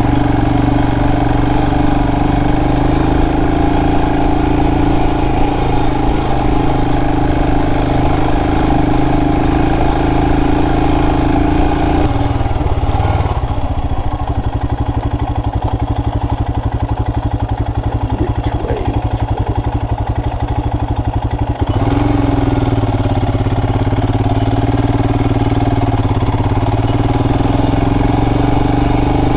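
Royal Enfield Himalayan's single-cylinder engine running steadily while the motorcycle is ridden. About twelve seconds in it drops to a lower, quieter note for roughly ten seconds, then picks back up.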